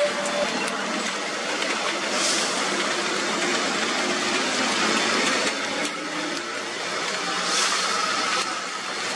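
Hino container truck's diesel engine running under load as the truck crawls over a wet, broken road, against a steady wash of noise. The high hiss swells briefly about two seconds in and again near the end.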